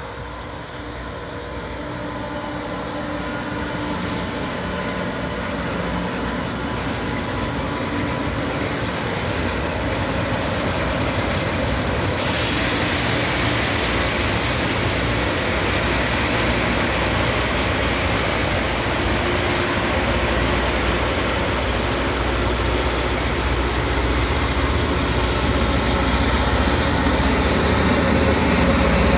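Loram rail grinder train passing, its diesel engines running under a harsh, hissing grinding noise from the stones working the rail. The noise grows steadily louder, turns brighter and harsher about twelve seconds in, and gains a heavier low rumble in the second half.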